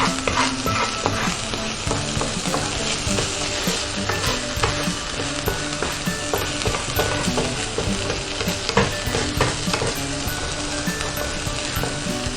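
Minced meat with onions sizzling as it fries in a pan, a spoon stirring it and knocking and scraping against the pan many times.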